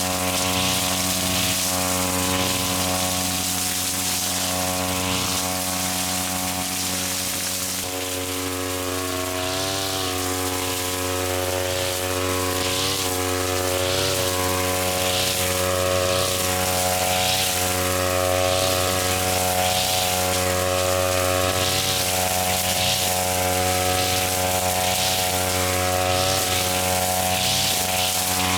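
Small petrol engine of a grass-cutting machine running steadily at high speed. Its pitch dips briefly a few times as it bogs under load in thick grass. Over it there is a swish of cutting grass roughly once a second.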